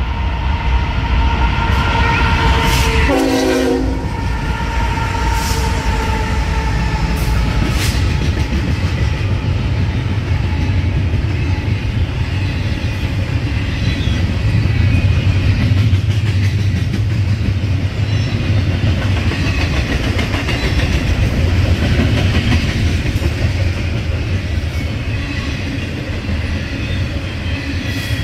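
A long double-stack container freight train passing at speed: a steady heavy rumble of the cars, with the wheels clacking over rail joints. A train horn sounds over it for the first few seconds.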